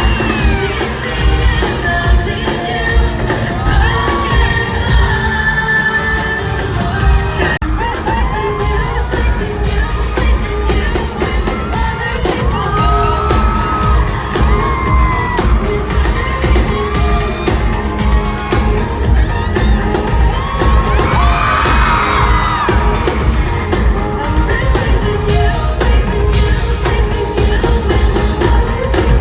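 Pop music with a singer's voice over a steady beat, with whoops and yells from a crowd.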